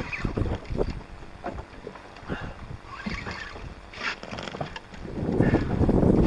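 Wind buffeting the microphone on an open boat at sea, with scattered small knocks and clicks of handling and gear; the rush of noise grows louder near the end.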